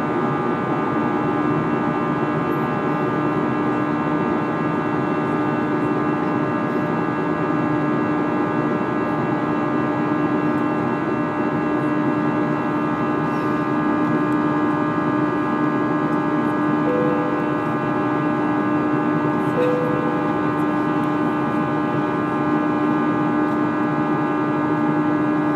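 Airbus A320 cabin drone: the jet engines and airflow make a steady hum of several tones over a rush of noise. Two brief higher tones sound about two-thirds of the way through.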